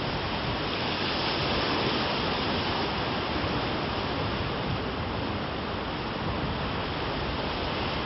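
Steady wash of ocean surf, with wind on the microphone.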